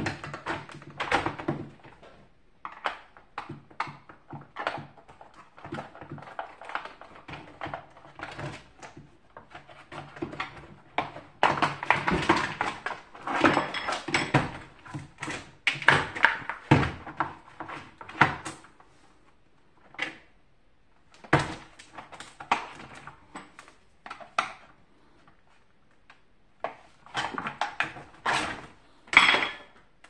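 Rigid plastic housing and grille of a box fan being handled and worked apart: irregular clicks, knocks and scraping of plastic on plastic, with a few short quiet pauses.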